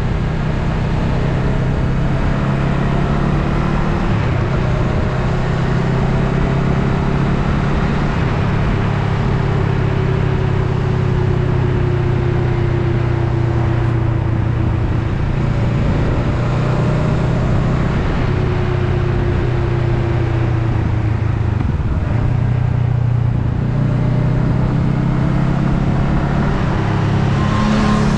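Honda Rebel 500's parallel-twin engine running at a steady cruise under the rider, over a constant rush of wind and road noise. The engine note drifts slowly in pitch, eases off a little past the two-thirds mark and picks up again near the end.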